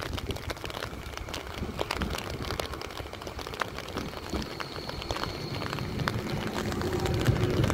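Stadler Tramlink low-floor electric tram drawing into a station. Its running rumble grows louder toward the end, with a brief high whine about halfway through. Light rain patters throughout in scattered crackling drops.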